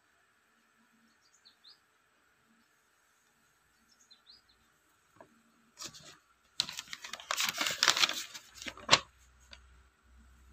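Sheets of a paper instruction manual being unfolded and handled: crackling and rustling for about three seconds in the second half, ending in one sharp crinkle. A few faint bird chirps come before it.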